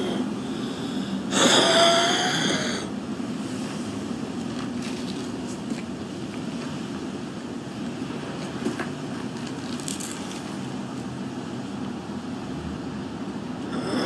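A woman's single harsh, phlegmy smoker's cough about a second and a half in, lasting over a second, from heavy smoking. After it, only a steady low background noise with a few faint small sounds.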